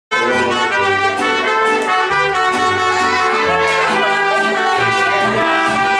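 Mariachi band playing: trumpets carrying the tune over strummed guitars and a moving bass line.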